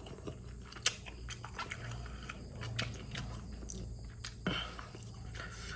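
A person chewing and eating fresh vegetables: scattered short crunches and mouth clicks over a steady low hum.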